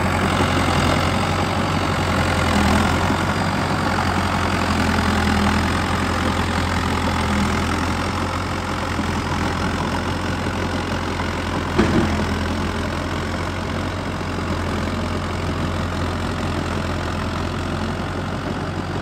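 1982 John Deere 450C crawler dozer's 70 hp John Deere 300 series diesel engine running steadily as the dozer drives. There is a single sharp knock about twelve seconds in, and the sound grows a little fainter as the machine moves away.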